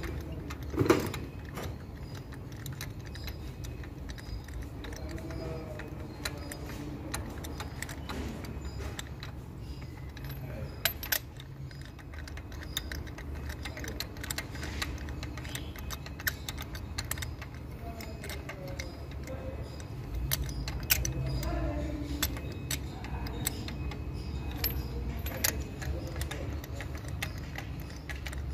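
Scattered light metallic clicks and clinks of a socket tool working in the plug wells as new spark plugs are fitted to a Mercedes-Benz W210 engine, with one sharper clank about a second in.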